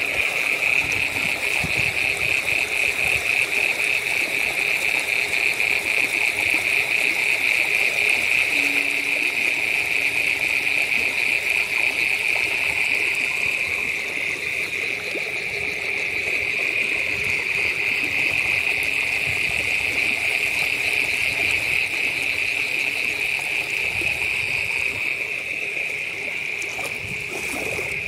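Water trickling through a flooded grassy field, under a steady high-pitched shrill trill that pulses rapidly and is the loudest sound throughout.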